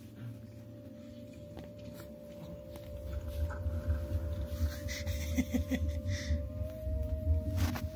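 Cat rolling and rubbing against a fabric couch close to the microphone: low rumbling and rustling that grows louder about three seconds in, with a few soft clicks. Under it a steady high tone holds one pitch and steps up slightly near the end.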